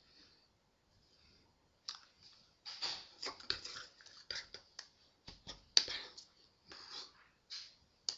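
Irregular clicks, taps and short breathy hisses from a person signing without voice: hands and fingers striking and brushing, with small mouth and breath noises. It is faint for the first two seconds, then comes in a quick uneven run, the sharpest tap a little before the end.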